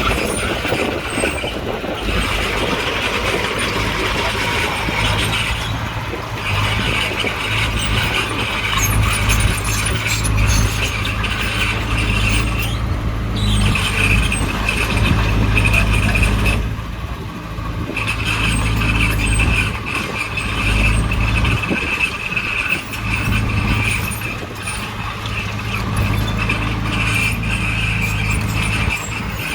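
Bulldozer's diesel engine running steadily under a high, steady squeal, with both easing off briefly twice.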